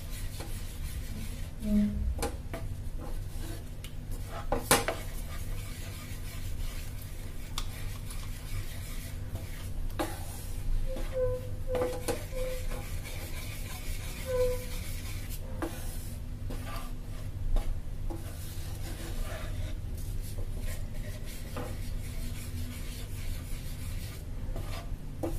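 Wooden spatula stirring thick custard in a metal pan, rubbing and scraping against the pan, with a few sharp knocks. A low steady hum runs underneath.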